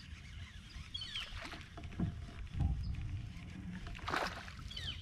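Kayak handling sounds while a fish is being played on a baitcasting rod: low knocks and rumble from the hull, and a brief splash-like burst about four seconds in. Short bird chirps about a second in and again near the end.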